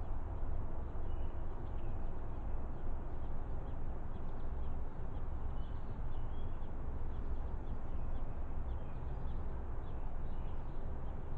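Baby birds cheeping: many short, faint, high peeps scattered throughout, over a steady low rumble.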